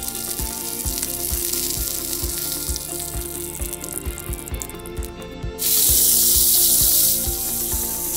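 Hot oil sizzling in a miniature wok over background music with a steady beat. About two-thirds in, the sizzle jumps suddenly much louder as diced tomato goes into the hot oil, then eases.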